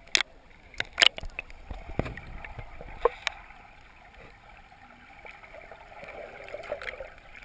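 Sea water sloshing and gurgling around a GoPro camera held half under the surface, heard muffled, with several sharp knocks on the camera housing, the loudest about a second in.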